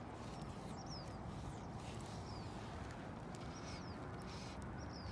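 A bird repeating a short, high, falling chirp about once a second, faint over a steady low background rumble.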